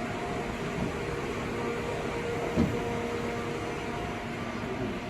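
Steady mechanical hum from a Mori Seiki ZT2500Y CNC turning center standing under power, with a few steady tones and a single short knock about two and a half seconds in.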